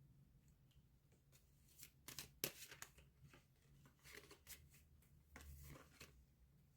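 Faint rustling and soft clicks of tarot cards being handled and shuffled, coming in scattered clusters, thickest about two seconds in and again toward the end.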